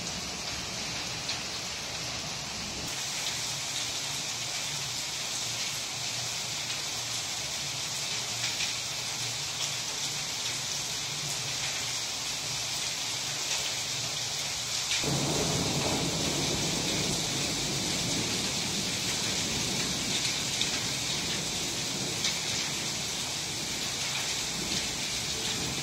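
Heavy rain mixed with hail pelting a wet tiled terrace: a steady hiss full of small, quick ticks. About halfway through, a deeper rumble of thunder joins in and holds.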